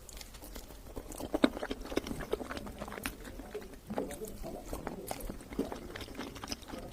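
Close-miked wet chewing and lip-smacking of a person eating Kayseri yağlama, with irregular clicks and smacks several times a second.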